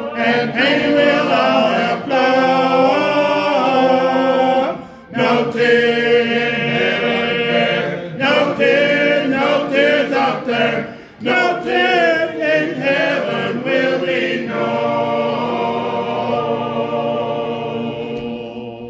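Congregation singing a hymn a cappella in parts, voices only, in phrases with short breaks. It ends on a long held final chord that fades away.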